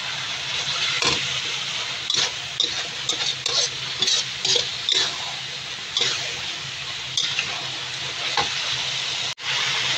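Spice paste sizzling in hot oil while a metal spatula stirs it around the pan, with repeated short scrapes and knocks of the spatula against the pan over the steady sizzle. The sound drops out for an instant near the end.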